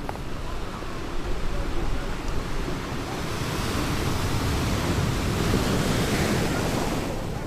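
Small sea waves washing onto the beach, a surge of surf building about three seconds in and easing off near the end, with low wind rumble on the microphone.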